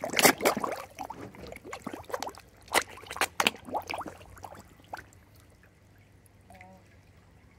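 Koi splashing and gulping at the water's surface as they crowd a feeding hand. Irregular splashes, loudest at the start and again around three seconds in, die away about five seconds in.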